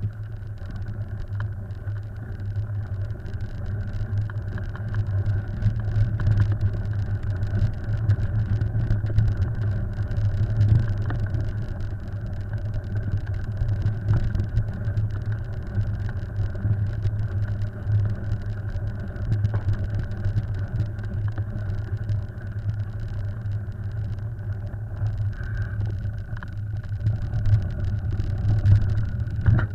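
Steady low rumble of wind and tyres rolling down a dirt singletrack, picked up on a body-mounted action camera, with frequent small rattles and knocks from the rough trail.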